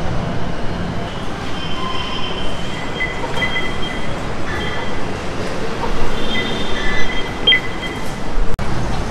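LRT train running through an elevated station: a steady rumble, with high squealing tones coming and going. A single sharp click near the end.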